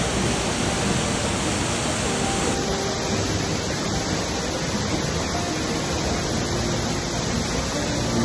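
Leghvtakhevi waterfall: water falling and splashing into its rocky pool, a steady rushing noise.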